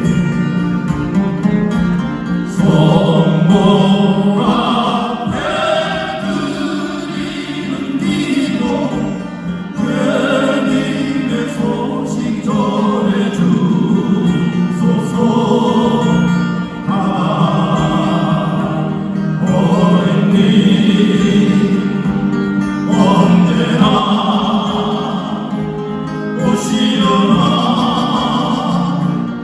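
Acoustic guitars playing a slow song while a group of voices sings in long phrases over them.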